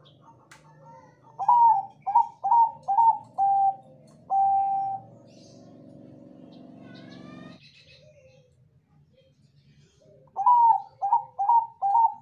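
Bangkok perkutut (zebra dove) singing its cooing song: a run of short, quick coos ending in one longer held note, given about a second and a half in and again near the end.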